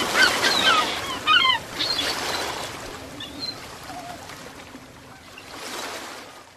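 Ocean waves washing in with birds calling over them. A flurry of short chirps comes in the first two seconds, then the surf alone swells once more and fades out.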